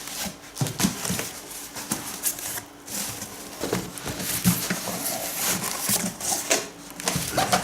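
Cardboard box and packing rubbing, scraping and knocking irregularly as a PC case is shaken and worked out of its box.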